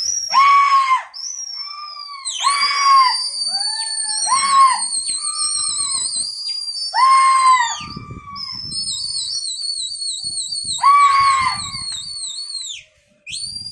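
Piercing high whistles from pigeon fliers: one held long, then one warbling rapidly, mixed with five short loud shouts, used to signal a flock of pigeons circling overhead.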